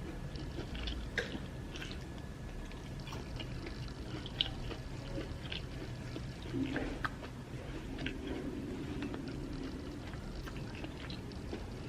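Close-up eating sounds: chewing of soft amala with soup and fish, with scattered small wet mouth clicks.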